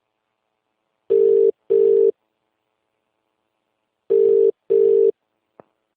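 Telephone ringback tone of an outgoing call ringing at the other end: two double rings of a low steady tone, the pairs about three seconds apart, then a faint click near the end.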